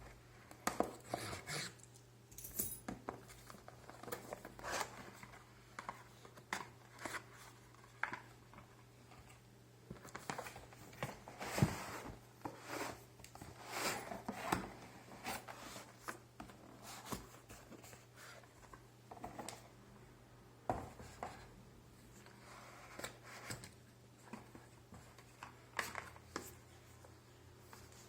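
Cardboard box and packaging of a smart bathroom scale being opened and handled: irregular rustles, scrapes, tearing and small clicks, with a faint steady low hum underneath.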